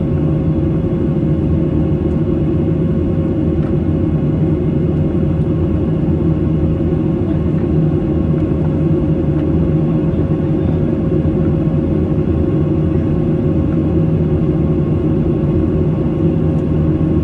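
Steady cabin drone of a Boeing 737-800 in flight, heard from a window seat over the wing: the low noise of its CFM56-7B turbofans and the airflow, with a steady hum tone running through it.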